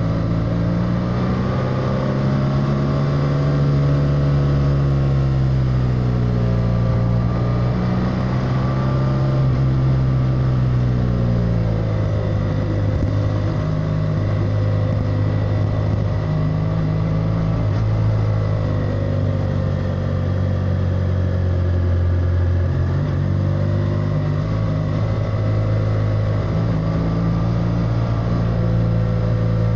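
BMW F800R parallel-twin motorcycle engine running while riding. Its pitch rises and falls several times as the throttle is opened and closed through the bends.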